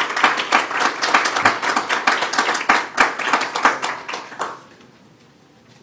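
Small audience applauding, a dense patter of hand claps that dies away about four and a half seconds in.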